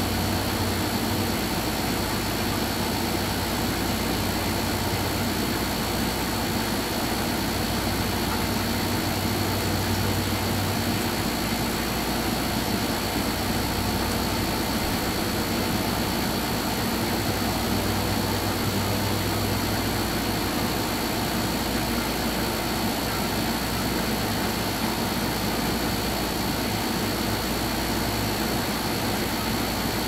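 Steady low mechanical hum under a constant hiss, like a motor or engine running without change.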